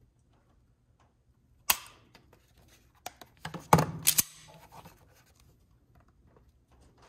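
Sig P365 striker-fired pistol dry-fired under a trigger pull gauge: one sharp click as the trigger breaks and the striker falls, about a second and a half in. About three seconds in comes a cluster of metallic clacks and rattles as the slide is racked by hand to reset the striker.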